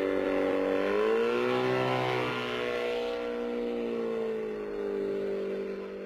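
Engine of a small homemade single-seat rotorcraft in flight. Its note rises about a second in, then slowly sinks.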